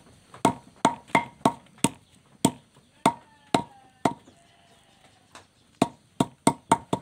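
Machete blade repeatedly striking lemongrass stalks on a wooden plank to crush them: sharp chopping knocks with a brief metallic ring. There are about nine strikes in the first four seconds, a pause of nearly two seconds, then a quick run of five more near the end.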